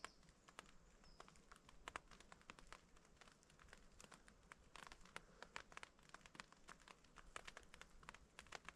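Faint, irregular taps of raindrops falling on a tent as a rain shower sets in, several a second, a little thicker from about halfway through.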